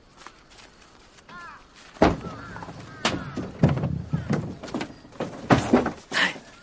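A run of heavy thuds and knocks from a scuffle, the first and sharpest about two seconds in, with more every half second or so; crows caw in the background.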